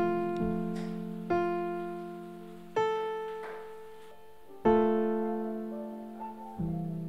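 Background music: slow, soft piano chords, each struck and left to ring and fade, a new chord every one and a half to two seconds.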